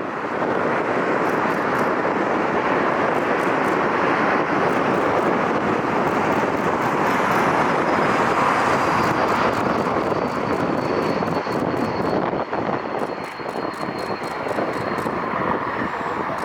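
Airliner jet engines passing, a loud rushing roar that swells to a peak about halfway through and then eases off. A thin high whine slowly falls in pitch over the second half.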